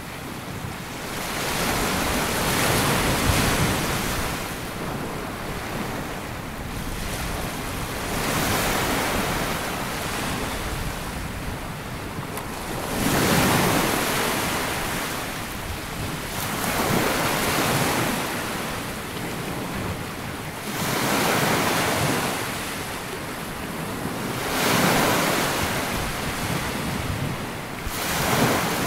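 Small waves breaking and washing up a sandy beach, one surge every three to four seconds, each swelling and then fading.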